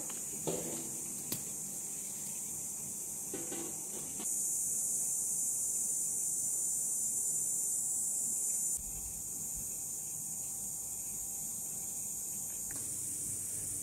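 Steady high-pitched drone of insects, louder from about four seconds in until about nine seconds in.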